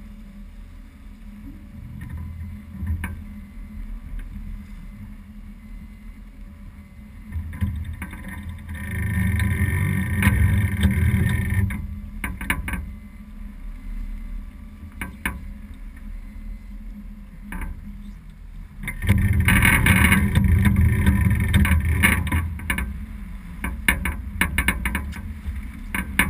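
Wind buffeting the microphone and water rushing along a sailboat's hull while sailing heeled, swelling louder twice, about a third of the way in and again about three-quarters through, with a few sharp knocks near the end.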